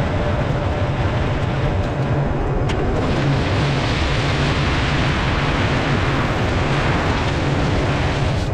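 LS MT357 tractor's diesel engine running steadily under load, with a rushing hiss that grows stronger about three seconds in, in keeping with limestone gravel being dragged and spread.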